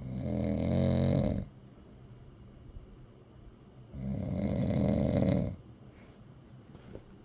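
A man snoring in his sleep: two long snores, each about a second and a half, about four seconds apart, with quiet between them.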